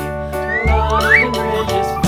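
Background music with steady held tones, and a rising whistle-like glide sweeping upward about half a second in.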